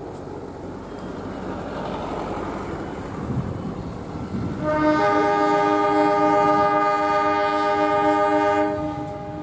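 KAI CC 203 diesel-electric locomotive approaching with a rising rumble, then sounding its multi-tone horn in one long blast of about four seconds, starting about halfway through.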